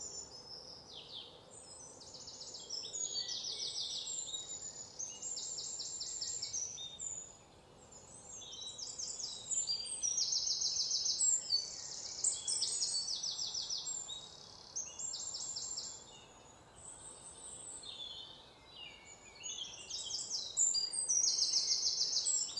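Several wild birds chirping, with high, fast trills and short falling chirps that overlap and come and go every second or two.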